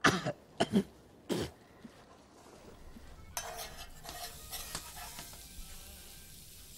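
Three short, sharp sounds within the first second and a half, then faint light taps and clinks as a paintbrush is worked on a small painting.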